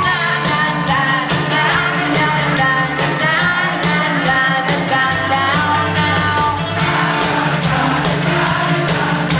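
Live rock band playing, with a woman singing the lead vocal over drums, bass and keyboards.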